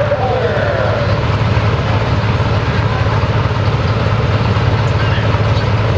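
Diesel pulling pickup's engine running with a loud, steady low drone while the truck is hooked to the pulling sled.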